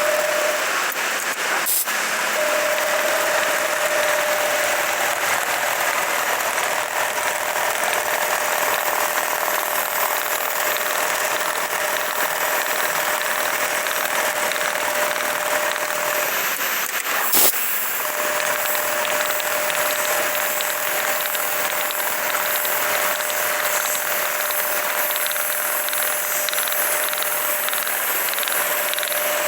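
Lanmax LM 1390G-HL programmable pattern sewing machine running steadily, with a constant hum. The hum breaks off briefly around two sharp clicks, one about two seconds in and one about seventeen seconds in.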